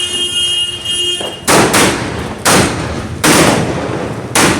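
Sri Kaliswari Cock brand 'Titania 72' multishot firework cake firing. A steady high whistle-like tone runs for about the first second, then come four loud bangs, about one a second, each trailing off.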